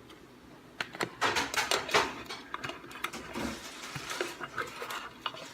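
Crackling rustle of a wrapper or packet being handled: a dense run of crinkly clicks from about a second in, then a few scattered ticks.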